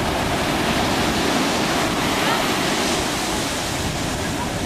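Ocean surf breaking and washing up the beach, a steady wash of noise.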